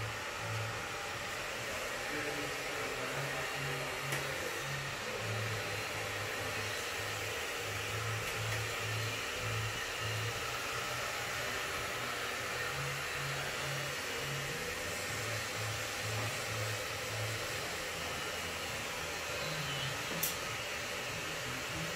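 Electric hair clippers running with a steady whirr during a buzzcut, with a single sharp click near the end.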